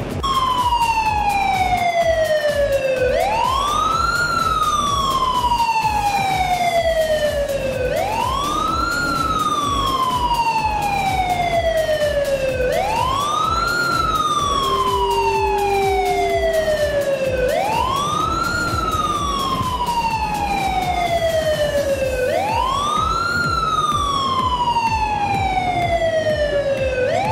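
Siren-like wail in the runway soundtrack, rising quickly and falling slowly, repeating about every five seconds, six rises in all. A brief steady low tone sounds midway.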